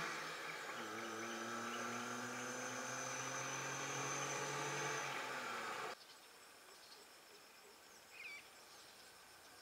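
Engines of vehicles driving past hum steadily under a constant chorus of insects. About six seconds in, the sound cuts off abruptly to quieter outdoor ambience, with one short bird chirp near the end.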